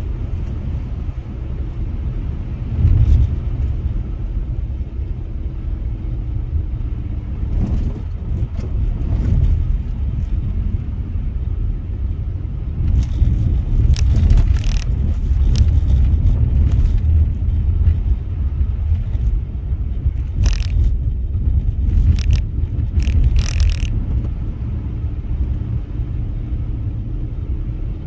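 Car driving on a snowy road, heard from inside the cabin: a steady low rumble of tyres and engine, with a few short knocks or scrapes in the middle and later part.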